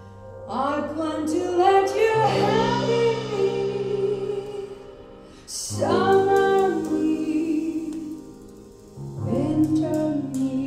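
Recorded music played through a high-end hi-fi system's loudspeakers: a woman singing three phrases over sustained accompaniment.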